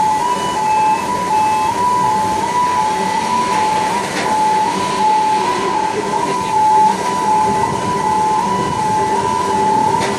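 Two-tone warning alarm of a shipyard gantry crane sounding steadily, switching quickly back and forth between a high and a low note, over a steady low machinery hum. The alarm signals that the crane is moving a suspended load.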